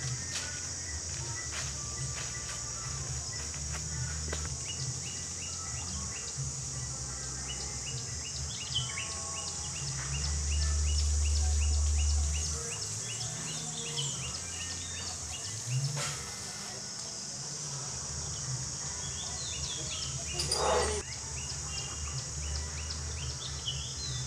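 Steady high insect drone with birds chirping repeatedly over it, and a low rumble underneath that swells for about two seconds midway.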